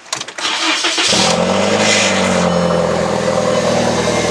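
Mk4 Volkswagen Jetta being started: the starter cranks for about a second, then the engine catches, flares up and settles into a steady idle. There is no exhaust-leak sound; the cracked pipe, patched with exhaust putty, sounds nicely sealed up.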